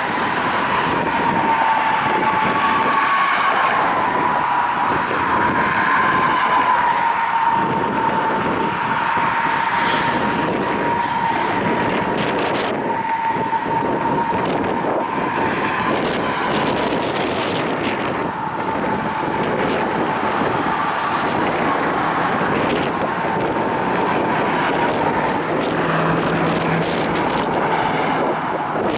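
Freight train of covered hopper cars rolling slowly through a curve: a continuous rumble of wheels on rail with a steady, slightly wavering squeal from the wheels grinding against the rail.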